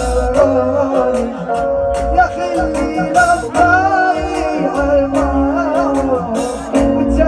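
A male voice sings a hajini, the Bedouin camel-riding song style, over a backing track with a steady low beat and percussion.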